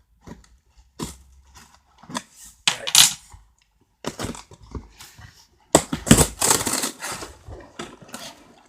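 Keys scraping and cutting through sellotape on a cardboard parcel, with the box and tape rustling and tearing in irregular bursts and occasional metal clinks; the longest, loudest stretch of tearing comes about six seconds in.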